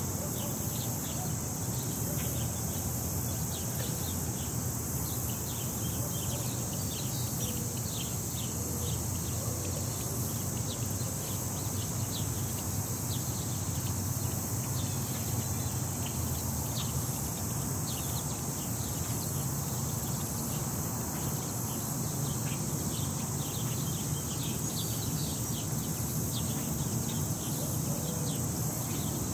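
Outdoor ambience: a steady, high-pitched insect chorus with many short, high bird chirps scattered through it, over a steady low rumble.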